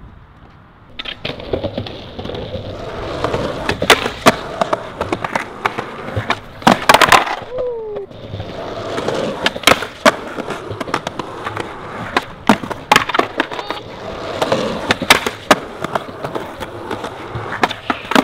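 Skateboard wheels rolling on rough concrete, with many sharp clacks as the board is popped, strikes and slides along a concrete ledge, and lands. The rolling starts about a second in.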